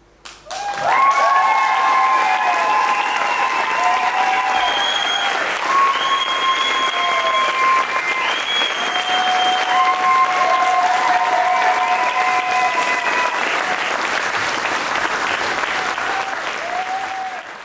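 Audience applauding, with long drawn-out whoops and cheers from several voices over the clapping. The applause breaks out about half a second in and dies away near the end.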